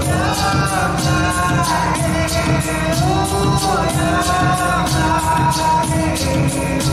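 Music: a melody of long, gliding held notes, sung or played, over a steady high percussion beat of about four strokes a second.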